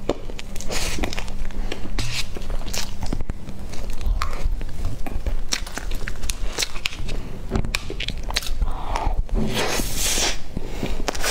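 Close-miked mouth sounds of eating cream-frosted sponge cake: wet smacking and chewing with many irregular small clicks, and a metal spoon scraping cake off the board.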